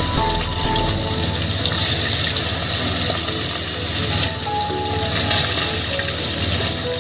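Small whole obtuse barracuda frying in hot oil in a pan: a steady, loud sizzle that grows louder about four seconds in.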